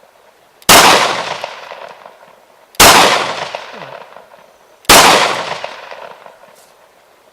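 Three gunshots, evenly spaced about two seconds apart, each with a sharp crack that rings off over a second or so.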